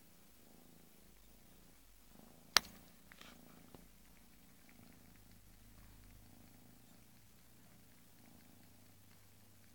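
Bengal kitten purring quietly, a low steady rumble. A single sharp click about two and a half seconds in, followed by a few fainter clicks.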